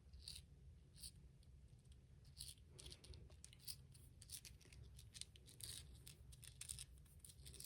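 Faint clicking and scraping of a 3D-printed plastic articulated toy's jointed parts being moved by hand: a few separate clicks at first, then quick clusters of clicks from about three seconds in.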